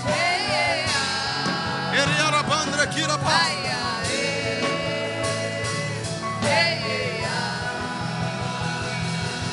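Gospel worship music: steady held keyboard chords over a pulsing bass, with a singer's wordless, wavering vocal runs coming in a few times.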